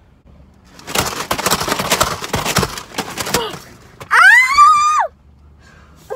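A boy's upset outburst: a noisy scuffle and yelling, then one loud, high-pitched scream that rises and falls, the loudest sound here.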